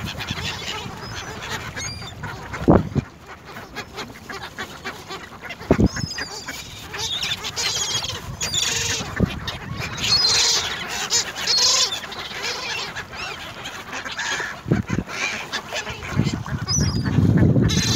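A busy flock of gulls and mallards calling on the water: many short, harsh gull cries mixed with duck quacking, with a few dull low thumps in between.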